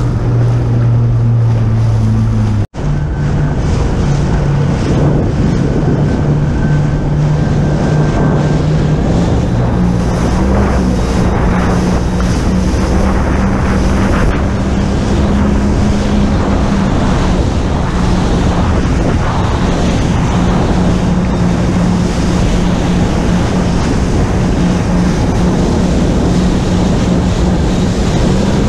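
Jet ski engine running under way, its hum rising in steps over the first ten seconds and then holding steady, with heavy wind on the microphone and rushing water. The sound cuts out for an instant about three seconds in.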